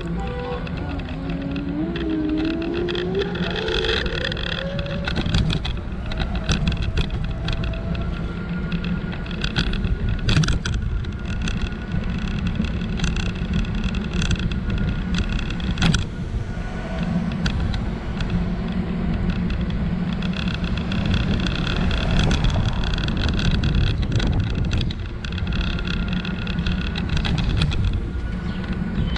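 Scooter ride over rough city asphalt: a steady low rumble of wind and wheels, with occasional sharp jolts over cracks. A whine rises in pitch over the first five seconds as the scooter picks up speed.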